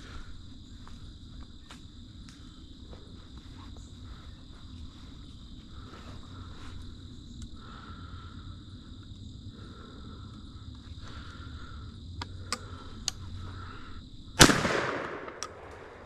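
A single shot from a single-shot .410 shotgun about two seconds before the end, a sharp crack whose tail dies away over about a second. Crickets chirp steadily underneath.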